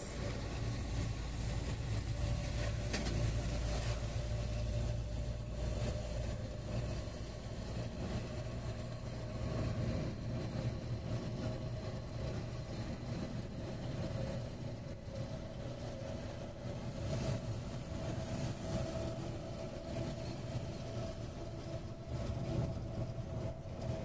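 Engine and road noise heard from inside a moving vehicle's cab: a steady low rumble with a continuous drone.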